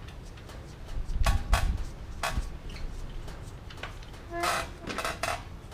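Metal parts and tools clinking and knocking while a timing chain gear and its bolt are fitted to a VR6 engine: a few dull knocks about a second in, then several ringing metal clinks near the end.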